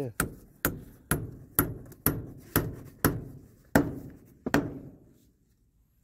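Hammer driving nails into a wooden board: about nine sharp strikes, roughly two a second.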